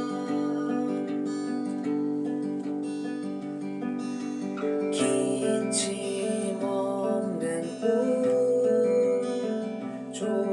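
Acoustic guitar strummed and picked in a live song performance, with the playing getting fuller and louder about halfway through.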